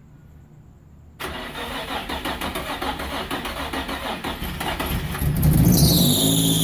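Nissan 350Z's 3.5-litre V6 cranking on the starter for about four seconds from about a second in, then catching and starting: the first start in half a year, with a newly fitted turbo kit. A high, slightly falling whine sets in just as it catches.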